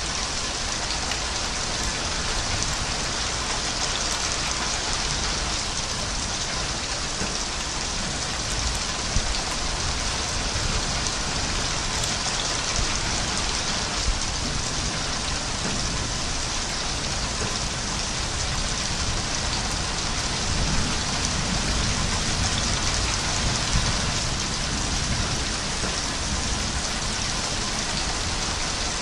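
Steady rain falling, a continuous even hiss with a few slightly louder drops here and there.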